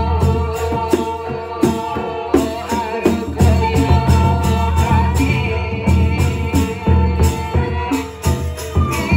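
Gendang beleq ensemble from Lombok playing a gending: large double-headed barrel drums struck with stick and hand keep a steady beat under cymbals and a bamboo suling flute carrying the melody.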